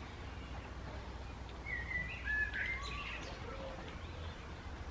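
A bird singing a short phrase of clear whistled notes about two seconds in, over a steady low background rumble.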